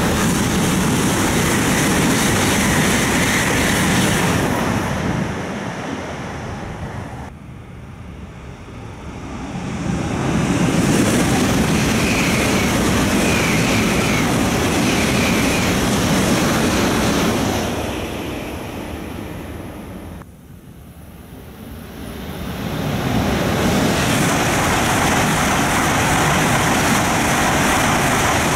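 Shinkansen bullet trains passing at high speed, a loud rush of air and rail noise. It comes in three waves that build and fade, dipping between passes.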